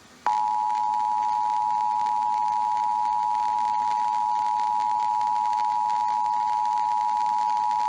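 Emergency Alert System attention signal: the steady two-tone alert (853 and 960 Hz together), starting a fraction of a second in and holding unbroken. It marks the start of an EAS broadcast, here an Illinois EAS test.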